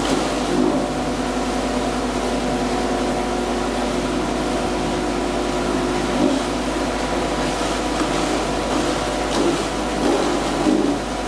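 Steady machine hum with several steady tones from precast plant running while wet concrete is discharged from a feed hopper into a steel mould on a table.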